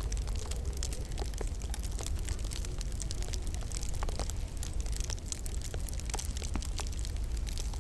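Wood fire in a log burner crackling: many small, irregular sharp pops and snaps over a steady low rumble.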